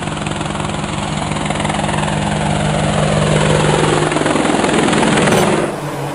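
Quadcopter drone propeller buzz used as an intro sound effect: a steady low hum, with a falling sweep that grows louder over it and cuts away abruptly near the end.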